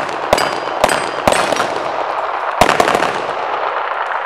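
Two competitors' handguns firing a rapid string of shots at steel plates, about four loud shots in the first three seconds and a few quieter ones after. Thin high rings follow the early shots, the steel targets ringing as they are hit and fall.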